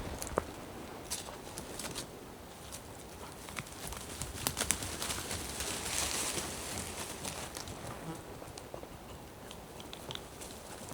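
Footsteps on a forest floor, with scattered twig snaps and a brief rustle of undergrowth brushed past about six seconds in.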